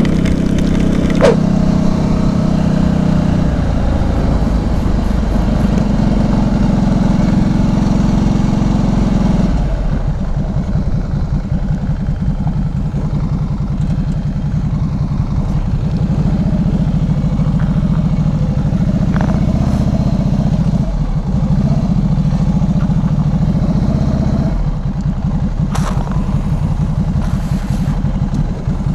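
Motorcycle engine running under way, heard from the rider's helmet or bike camera. About ten seconds in the engine note drops as the bike slows, and it runs on at low revs at walking pace for the rest.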